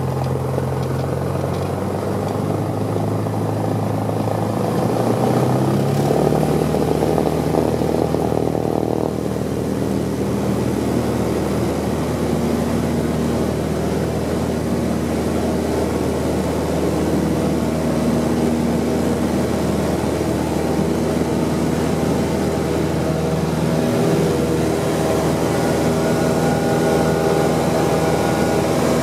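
Light aircraft's piston engine and propeller heard from inside the cockpit at takeoff power. The engine note rises in pitch about five to six seconds in as power comes up, then runs steadily through the takeoff roll and climb-out.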